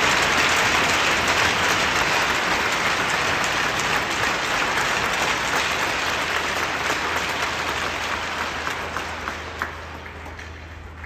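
Large crowd applauding, a dense spread of clapping that thins out over the last few seconds to a few scattered claps.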